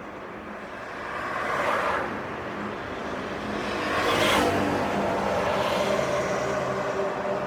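Cars passing by on a city street. Two swells of engine and tyre noise peak about two seconds and about four seconds in, and the second is the louder. A steady engine hum carries on after it.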